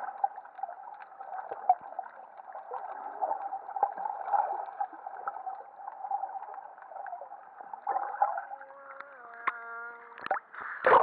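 Muffled underwater sound picked up by a submerged camera: a steady watery rush with small bubbling crackles. Near the end there is a brief steady hum, then loud splashing as the camera breaks the surface.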